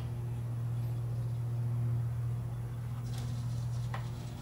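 Steady low hum, with two faint clicks about three and four seconds in.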